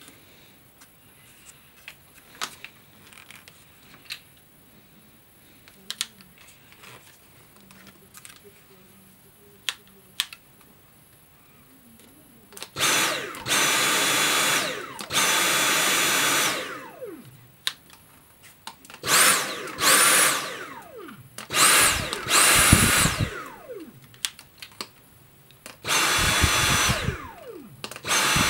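Dyson V7 cordless vacuum's motor, the handheld unit triggered on in about six short runs of a second or so each, starting about halfway through; each run opens with a rising high whine and falls away in a spin-down when the trigger is released. Before the runs there are only light plastic clicks from handling the unit.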